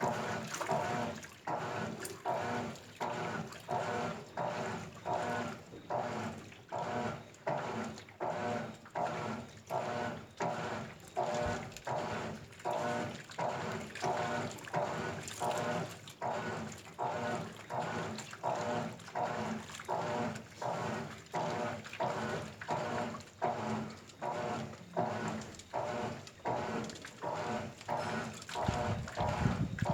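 GE 15 kg washing machine in its wash cycle, churning the load through water with a regular swish about every half second or so as the wash action reverses. Near the end a louder low rumble comes in.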